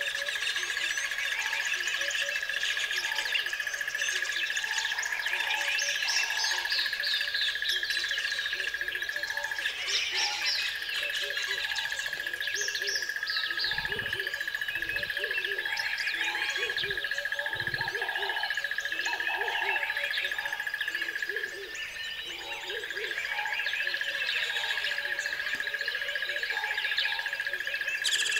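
Forest ambience: many birds chirping and calling, with low hooting calls repeating throughout and a steady high-pitched whine that breaks off briefly twice. A few low thuds come around the middle.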